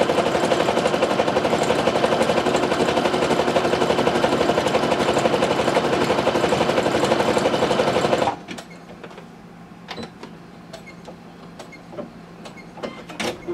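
Brother NQ470 domestic sewing machine stitching at a steady fast rate, stopping abruptly about eight seconds in. A few light clicks follow.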